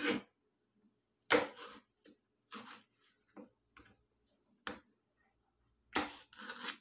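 Chef's knife slicing cucumber on a plastic cutting board: a string of irregular sharp knocks as the blade strikes the board, about eight or nine in all, the loudest a little over a second in.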